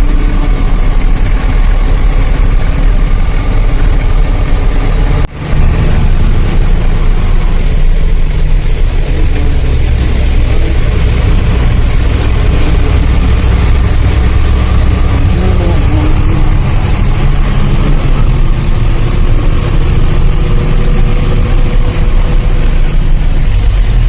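Vehicle engine running steadily with road noise, strongest in the low pitches, cut off for a split second about five seconds in.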